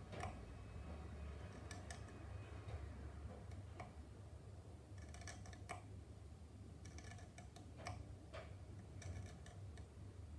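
Faint, irregular light scratches and clicks of a hand scribing tool drawn along a panel line in a plastic model car body shell, some strokes in quick clusters, over a low steady hum.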